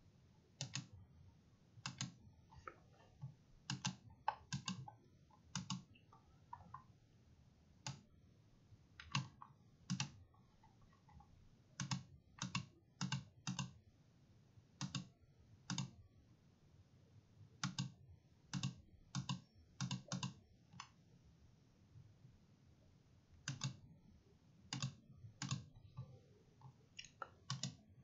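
Faint clicking of a computer mouse, single clicks and quick pairs at irregular intervals, with a pause of a couple of seconds a little after the middle.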